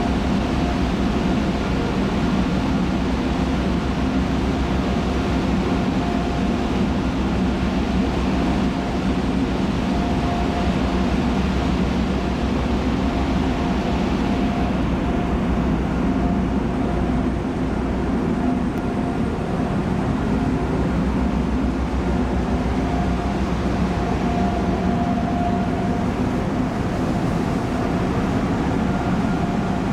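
Steady drone of the car ferry Shuttle Hoyo's engines and deck machinery, heard from the open deck while under way, with a constant mid-pitched tone running through it. A hissing layer over the drone eases about halfway through.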